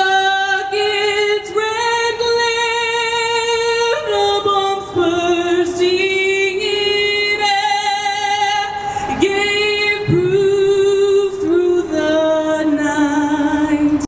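A woman singing solo, a slow melody of long held notes with vibrato.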